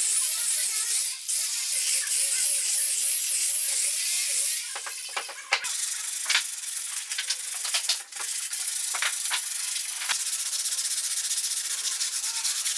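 Electric rotary sander with a hook-and-loop disc pad sanding raw log wood, its motor pitch rising and falling as it bears on the surface. About five seconds in it stops, and sandpaper is then rubbed by hand over the wood in quick strokes.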